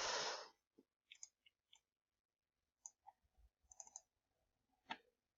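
Faint, irregular clicks from someone working a computer, a few at a time with pauses between, the sharpest about five seconds in. A brief breathy hiss at the very start.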